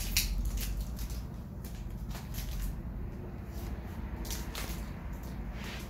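Clear plastic wrapping crinkling and rustling in short irregular bursts as it is pulled off a new bicycle's saddle, over a low steady background hum.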